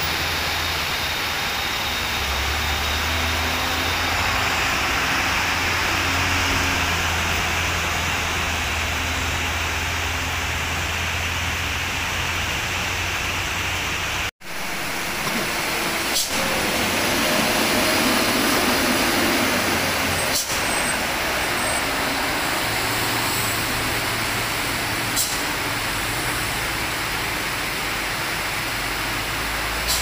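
Steady rain hiss over the low drone of heavy diesel trucks labouring up a hairpin bend. The sound cuts out for an instant about halfway, then a loaded dump truck passes close and the engine rumble grows louder for a few seconds, with a few sharp clicks.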